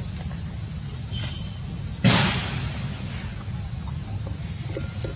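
Outdoor forest ambience: a steady high-pitched insect drone with a few faint chirps over a low rumble, broken about two seconds in by a sudden, brief rush of noise that is the loudest sound.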